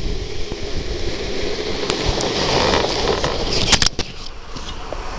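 Street luge rolling fast over asphalt: steady wheel rumble and wind rush on the helmet-mounted microphone. A few sharp clicks come just before four seconds in, after which the noise drops as the luge slows.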